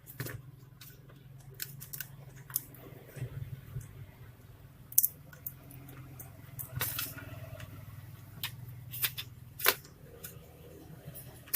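Irregular small clicks and taps of laptop parts being handled, with a few sharper knocks, over a low steady hum.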